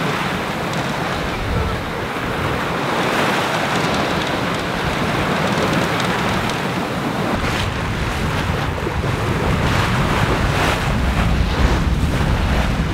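Wind and sea noise aboard a sailing yacht under way: water rushing and splashing over a steady wash of waves, with wind buffeting the microphone as a low rumble that grows stronger in the second half.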